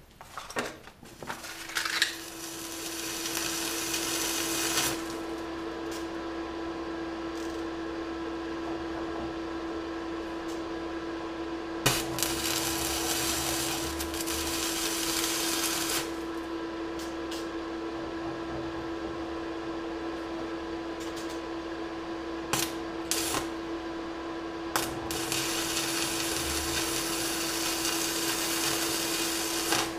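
Stick (MMA) welding arc from a Kemppi Minarc Evo 150 inverter welder, crackling and hissing as small beads are laid onto a preheated cast-iron gear. It is loudest in three runs of a few seconds each, with sharp snaps between them, over a steady hum.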